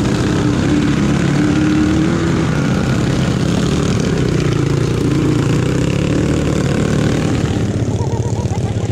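ATV (quad bike) engine running while riding, its pitch rising and falling with the throttle. Near the end it drops to a rougher, pulsing idle.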